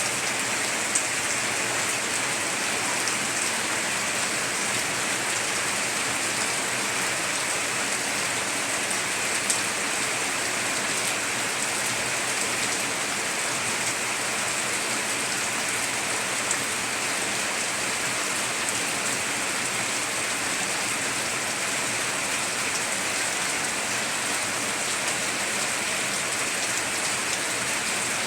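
Heavy rain falling steadily on a tiled roof, with a few sharper drop ticks now and then.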